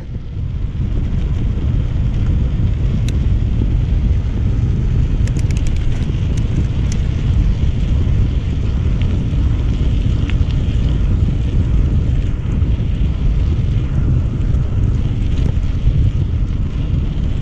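Heavy wind buffeting the microphone of a mountain bike riding fast on a dirt track, with a few short, sharp clicks and rattles.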